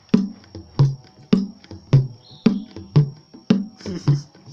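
Dangdut gendang (kendang) struck by hand, repeating the deep 'dut' bass stroke evenly about twice a second, with lighter taps in between.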